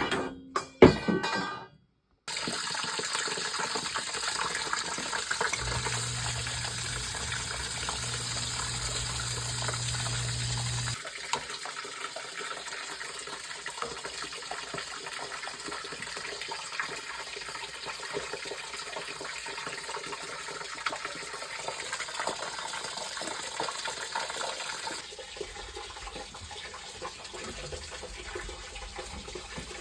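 Water running steadily, typical of a water heater tank being drained or filled through its plumbing. A low hum sounds along with it from about five to eleven seconds in, and the flow drops in level at about eleven seconds.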